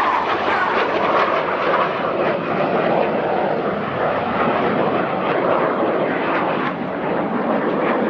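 Red Arrows BAE Hawk T1 jets flying past in formation, their turbofan engines making a loud, steady rushing jet noise.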